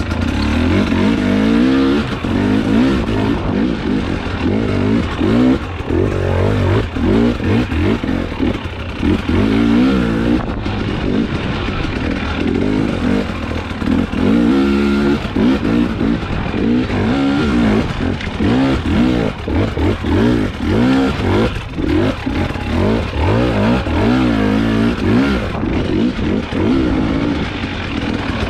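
Husqvarna enduro dirt bike engine revving up and falling back over and over as the throttle is worked on a rough trail, with an occasional knock from the bike.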